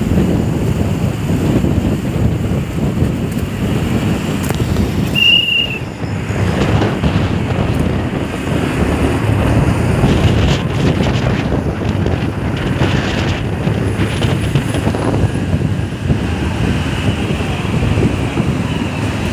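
Steady rush of wind on the microphone mixed with road noise from a moving vehicle, with a brief high beep about five seconds in.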